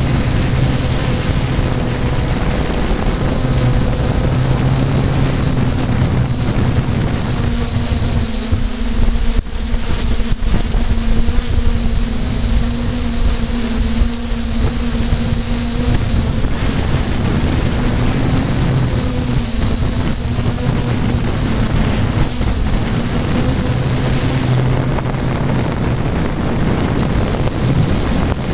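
Small multirotor drone's electric motors and propellers humming steadily in flight, heard from the drone's own on-board camera, the pitch dipping slightly and the sound wavering briefly around ten seconds in.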